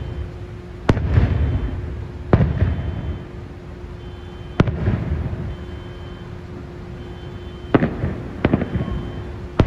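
Aerial firework shells bursting: five sharp bangs a second or two apart, the last two close together near the end, each trailing off in a rolling rumble of echo.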